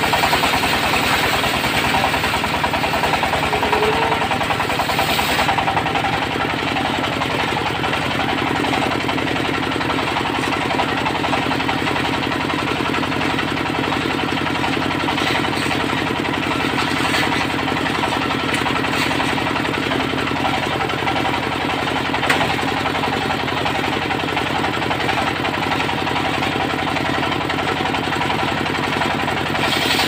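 Diesel-powered circular sawmill running, the engine's steady rapid clatter driving a large circular blade through a teak log. The sharper hissing cutting noise stops about five seconds in, and the engine and free-spinning blade run on until the cut starts again near the end.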